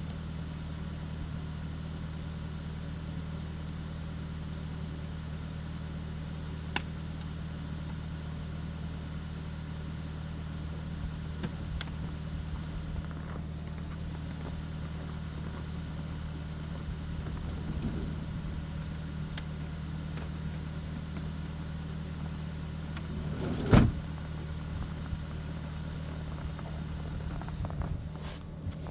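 Steady low mechanical hum, made of several fixed low tones, with a few faint clicks and one sharp knock near the end.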